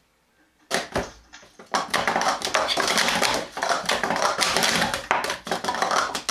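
Plastic sport-stacking cups clattering in a fast, dense run of clicks and taps as they are stacked up and down through a sport-stacking cycle. A couple of clicks come about a second in, and the steady clatter starts about two seconds in and runs on.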